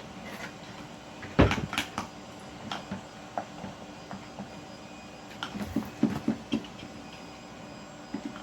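Spatula knocking and scraping against a plastic container while slime is mixed: irregular clatters, the loudest about a second and a half in and a cluster of them around six seconds.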